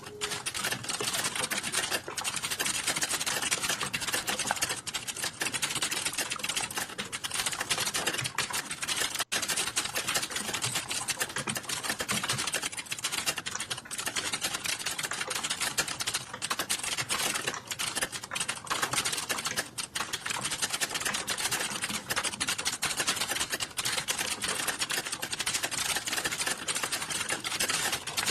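Computer keyboard being typed on fast and without letup, a rapid stream of key clicks with only a few short breaks.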